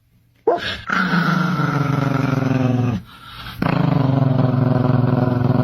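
A dog making two long, low, drawn-out vocal sounds, the first lasting about two and a half seconds and the second about three, with a short pause between them.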